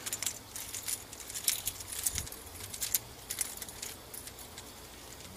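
Hand-handled plastic hose fittings on a camlock coupling clicking while being screwed together, with the small metal pin and wire ring on the coupling jingling. The light ticks come thick in the first three seconds or so, then thin out.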